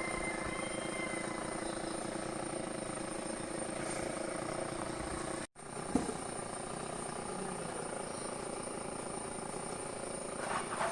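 Chainsaw engine running steadily, with a sudden brief dropout about halfway through.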